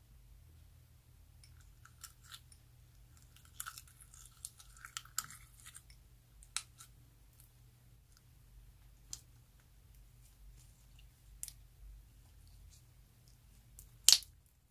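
Clear slime pulled out of a glass and handled, giving scattered sticky clicks and crackles. It ends in one sharp pop near the end as the slime is stretched.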